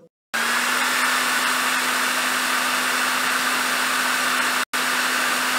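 Hair dryer running steadily: a rushing blow of air over a steady motor hum, starting a moment in and dropping out for an instant about four and a half seconds in.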